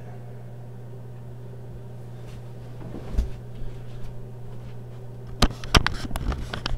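A steady low hum, with a single knock about three seconds in and a quick run of sharp clicks and knocks near the end.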